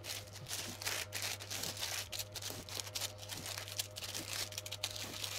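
Baking paper crinkling and rustling as it is folded in pleats and pressed against a stainless steel cake ring, in soft, irregular crackles over a low steady hum.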